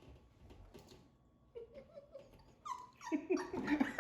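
High-pitched whining cries, faint and broken at first, then growing louder over the last second and a half, over faint clicks and rustling.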